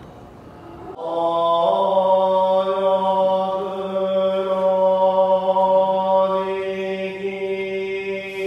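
Buddhist chanting: a man's voice intones one long held note, stepping up in pitch once shortly after it begins, in a reverberant temple hall.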